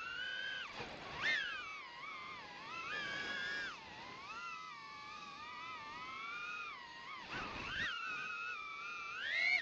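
DJI FPV drone's motors and propellers whining. The pitch climbs and falls continuously with the throttle, with sharp dips and climbs about a second in, again near the eight-second mark, and a rise near the end.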